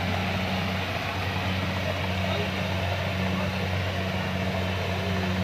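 Kubota DC-70 rice combine harvester running steadily while cutting ripe rice, its diesel engine giving an even low hum with no change in speed.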